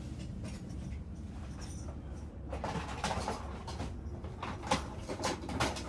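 Steady low hum, with a sheet of paper rustling and crinkling in irregular clicks from about two and a half seconds in.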